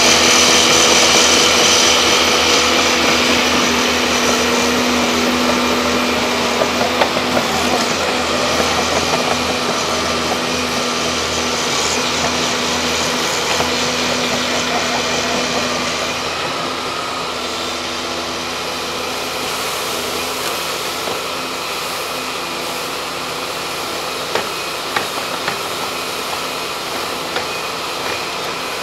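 Volvo excavator diesel engines running steadily at work, with a few light knocks. The sound eases down a little about halfway through.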